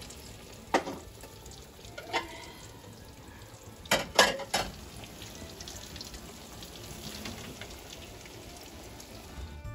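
Breaded eggplant slices sizzling steadily in hot corn oil in a frying pan, with a few sharp clinks of a metal utensil against the pan: one near the start, one about two seconds in, and a quick run of three about four seconds in.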